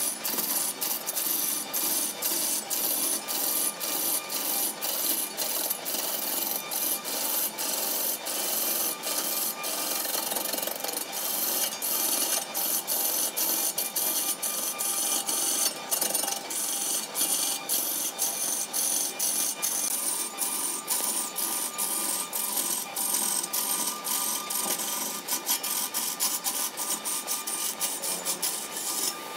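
Wood lathe turning a large wooden blank while a hand-held gouge cuts into it: a continuous rasping of the tool on the spinning wood over a steady whine, with rapid regular ticks that come faster in the second half.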